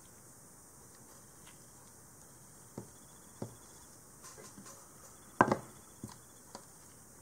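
Light clicks and knocks of aluminum replica-blaster parts being handled and set down on a cutting mat, with one much louder clack about five and a half seconds in.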